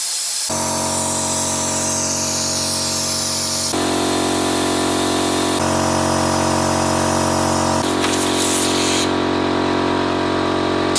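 Compressed air hissing through a venturi coolant vacuum filler tool while it pulls a vacuum on the car's cooling system before a coolant refill. An electric air compressor's motor starts about half a second in and runs steadily under the hiss. Both cut off suddenly at the end.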